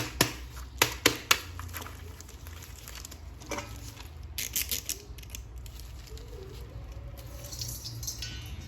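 Handling of plastic toys or packaging: a quick run of sharp clicks and taps in the first second and a half, then light rustling with a few more clicks about three and a half to five seconds in.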